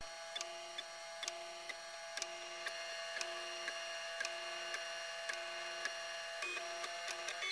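MakerBot 3D printer's stepper motors whining in several steady tones that switch on, off and change pitch every fraction of a second as the extruder head traces the print, with light clicks between moves.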